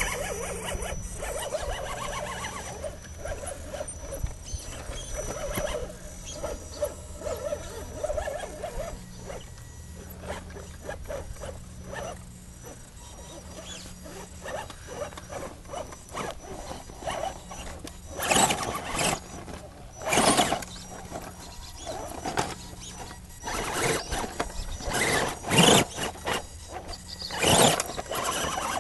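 Axial SCX10 RC rock crawler's electric motor and geartrain whining as it crawls over rock, the pitch rising and falling with the throttle. From about 18 seconds in, several louder rushing noises come and go over it.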